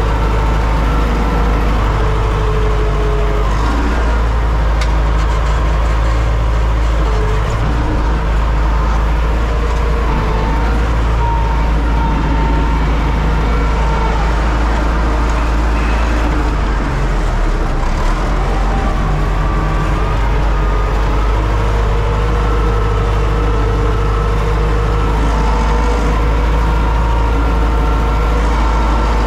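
Universal U650 tractor's four-cylinder diesel engine running steadily under load while pulling a plough, heard from inside the cab: a loud, constant low rumble with steady whining tones over it.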